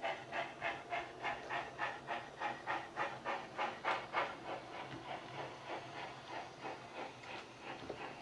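Steam locomotive exhaust chuffs with a steady hiss, from the Wheeltappers DCC sound decoder playing through the speaker of a Hornby 'Princess Elizabeth' model steam locomotive as it runs. The beats come in an even rhythm of about three a second and grow somewhat fainter in the second half.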